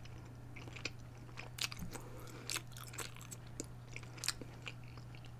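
Close-miked chewing of baked macaroni and cheese with a crisp melted-cheese crust: irregular small crunches and clicks.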